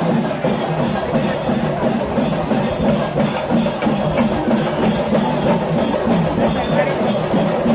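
Rhythmic percussion music: drums beaten in a fast, steady pattern with cymbals clashing on every beat.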